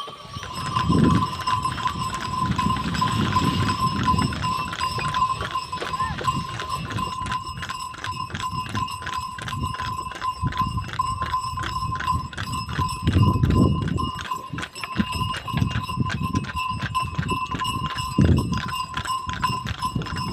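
Bullock cart drawn by running bulls: a fast, even clatter of hoofbeats over a steady high ringing tone, with a few loud bursts of low rumble.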